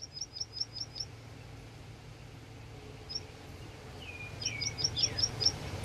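A songbird calling a quick series of short high chirps, about five a second, at the start and again near the end, with a few lower falling notes in between. A low steady rumble runs underneath.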